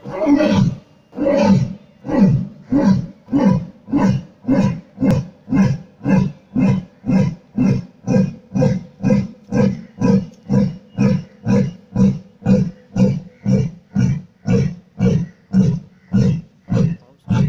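Lion roaring bout: two or three long, full roars open it, then give way to a long run of short grunting roars, about two a second.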